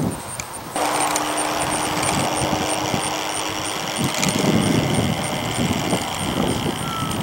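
Radio-controlled model airplane's motor droning steadily in flight overhead, with uneven low rumbling noise growing from about halfway through.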